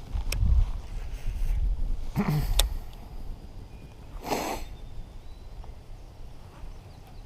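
Wind buffeting the microphone in a low rumble, easing after about three seconds, with a few sharp clicks and a short burst of noise about four seconds in.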